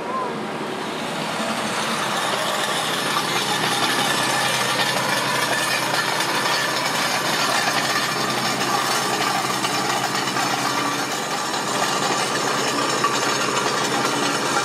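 Caterpillar wheeled excavator's diesel engine running steadily under working load while the machine spreads soil with its bucket.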